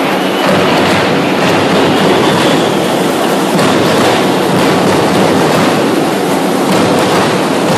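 A carnival bloco's band playing over a PA system, with the crowd, recorded so loud that it blurs into one dense, steady roar with a faint beat running through it.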